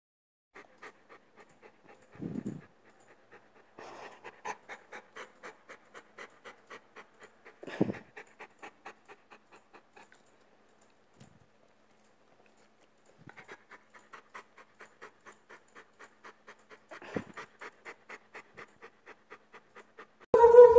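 Bernese mountain dog panting fast and close, about four breaths a second, with a pause of a few seconds in the middle. Three louder, deeper sounds break in along the way.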